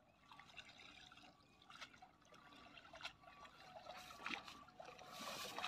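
Water trickling and dripping from a wet cast net as it is gathered up by hand in shallow pond water, with small splashes of wading. Faint at first, growing louder toward the end.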